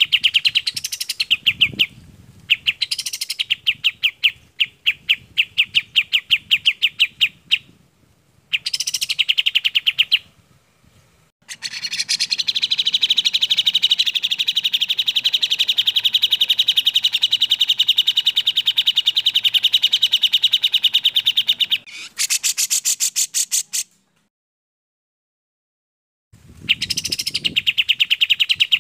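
Recorded bulbul song, the kapas tembak and cucak jenggot of a masteran track: rapid chattering trills of sharp, high notes in repeated bursts. In the middle one unbroken trill lasts about ten seconds. Near the end the song cuts out for about two seconds and then starts again.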